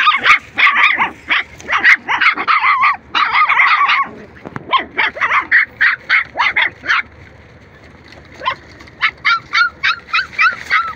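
Young puppies yelping in rapid, high-pitched calls. The calls come thick for most of the time, stop for about a second and a half, then resume near the end.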